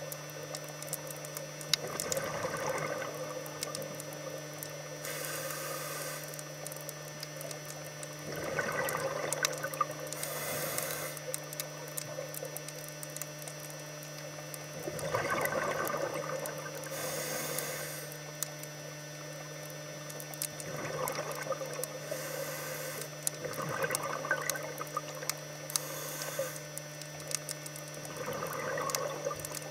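Scuba diver breathing on a regulator underwater: a hiss on the inhale and a gurgling rush of exhaust bubbles on the exhale, repeating every few seconds over a steady low hum.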